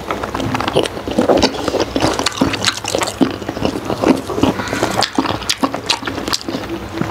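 Wet, close-miked chewing and mouth smacking on soft steamed pork skin: a rapid, irregular run of sticky clicks and squelches.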